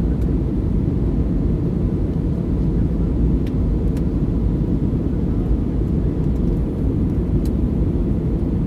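Steady low roar of an Airbus A321 cabin in flight, engine and airflow noise heard from a window seat, with a faint steady whine above it.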